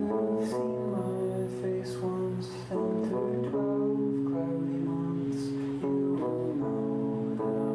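Stratocaster-style electric guitar played live: a slow run of picked chords, each left ringing before the next.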